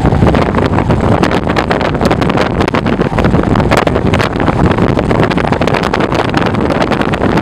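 Hurricane wind buffeting the microphone: a loud, rumbling rush with constant crackling.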